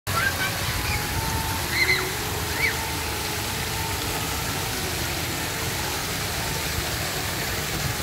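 Fountain jets spraying into a pond: a steady rush of splashing water. A few short high chirps sound in the first three seconds.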